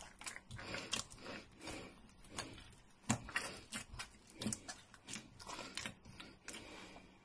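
Hands kneading a stiff, freshly dampened dough of flour and cooked dal in a stainless steel bowl. The pressing and folding make faint, irregular soft presses and small knocks, several a second.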